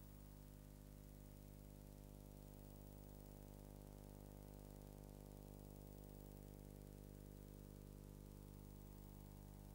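Near silence: only a faint steady hum and hiss, with no sound from the scene.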